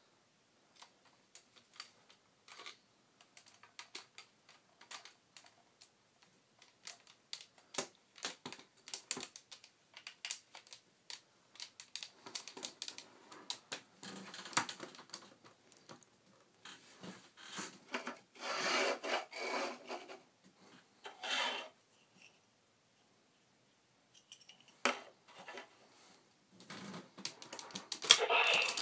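Imaginext T-Rex plastic toy being handled and moved: scattered sharp plastic clicks and taps, with longer rubbing and scraping sounds in the middle and a short quiet pause near the end.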